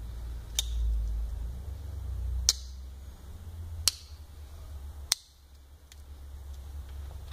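Four sharp metallic clicks, spaced about one to two seconds apart, from a Swiss Army-style folding multi-tool being handled as its tools are worked, over a low rumble of handling.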